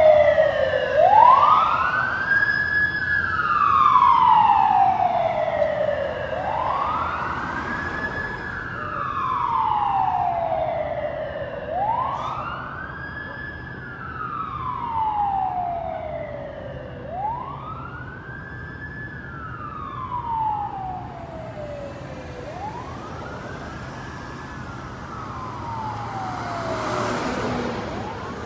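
Electronic siren of a fire department paramedic rescue ambulance sounding a slow wail, each cycle rising and then falling over about five seconds, growing fainter as the rig drives away.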